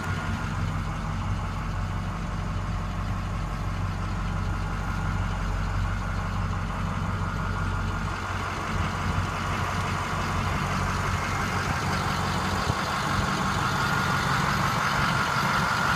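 Pre-emission diesel engine of a 2007 Ford F-650 dump truck idling steadily, heard from inside the cab.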